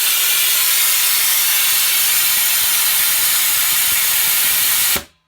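Timed automatic drain valve on an air compressor tank blowing off. It opens with a sharp click, gives a loud, steady hiss of compressed air purging condensate water from the tank, and shuts off suddenly after about five seconds.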